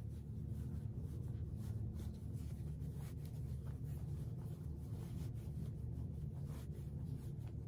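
Polyester fiberfill being pushed and packed into a muslin fabric snowman body by hand: soft scratchy rustling and rubbing of fabric and stuffing over a steady low hum.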